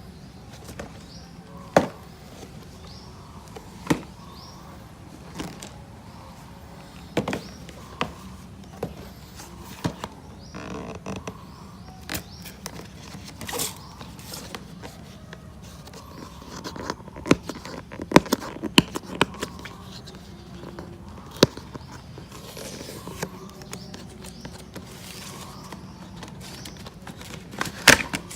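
Irregular clicks, clinks and knocks of a wrench and metal horn parts being handled during horn removal and fitting, over a steady low hum.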